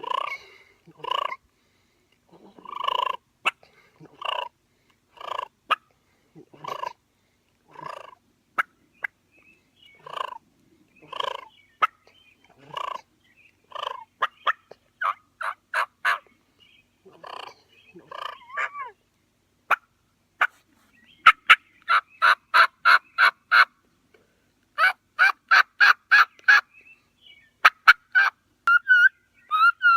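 Two-reed batwing diaphragm turkey mouth call blown to imitate a hen turkey: separate yelps about a second apart at first, quickening after about 14 seconds into fast runs of short, sharp notes, then a few wavering notes near the end.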